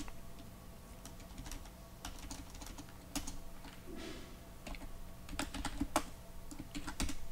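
Typing on a computer keyboard: scattered, irregular keystrokes as a typo is deleted and the line retyped.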